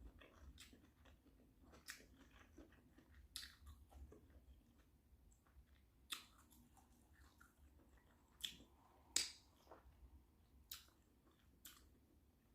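Faint, close-miked mouth sounds of someone eating a seafood boil: chewing with scattered sharp clicks, the loudest a little past two-thirds of the way through.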